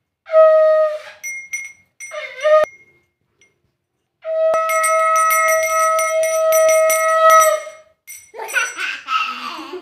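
A conch shell (shankh) blown in two short notes and then one long steady note of nearly four seconds, over a small brass hand bell rung rapidly. A child's voice follows near the end.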